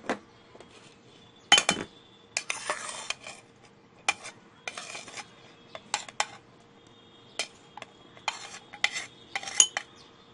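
A metal spoon tapping and scraping against a glass jar as sugar and chopped onion are spooned in: a series of separate clinks and knocks with short scraping stretches between, the loudest knock about a second and a half in.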